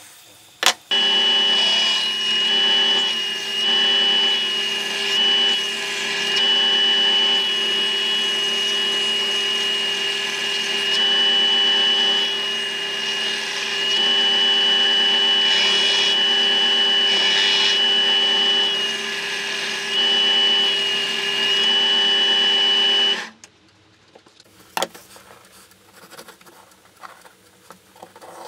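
Red combination belt-and-disc sander running, its abrasive belt grinding the steel blade of a machete made from a chainsaw bar: a steady machine sound with a high tone that grows louder in swells as the blade is pressed on. It stops sharply about 23 seconds in, leaving only a few light clicks and a knock.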